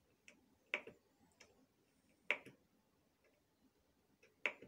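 Sharp clicks from operating the Hamilton C3 ventilator's controls: three loud clicks spaced about one and a half to two seconds apart, with fainter ticks between them.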